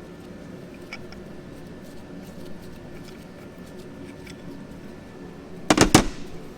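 Faint scattered clicks over a steady low hum, then a quick cluster of loud knocks near the end as connecting rods, rod caps and tools are handled on the bench.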